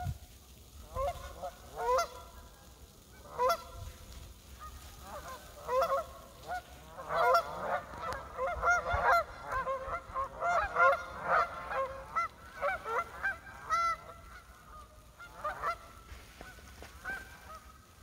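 A flock of Canada geese honking in many short overlapping calls. The calls are scattered at first, crowd together through the middle and thin out near the end.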